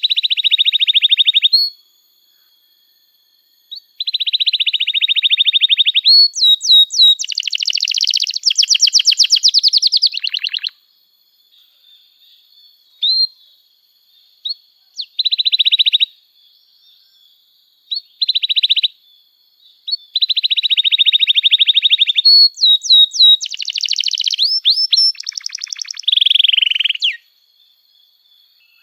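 Domestic canary singing: long phrases of fast rolling trills, broken by quick high rising sweeps, with short pauses between phrases.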